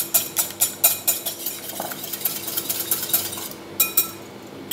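An egg being beaten in a glass bowl, the utensil clicking against the glass in a quick even rhythm of about five strokes a second. The beating fades out about three and a half seconds in, followed by two separate taps.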